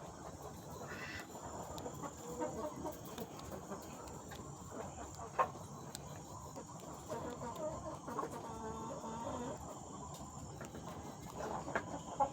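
Chickens clucking softly at a low, scattered level, with a faint steady high whine in the background.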